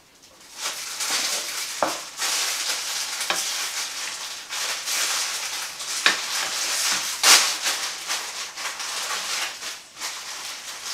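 Beef, garlic and mushrooms sizzling in a hot frying pan as they brown, stirred with a spatula, with a steady hiss. The spatula clacks against the pan a few times, loudest about seven seconds in.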